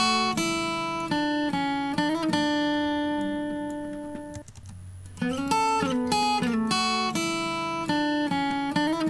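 A recorded guitar phrase of quick plucked notes ending on a long ringing note that fades. The loop restarts about five seconds in and the phrase repeats. The guitar is played back through a compressor at about 4:1 ratio.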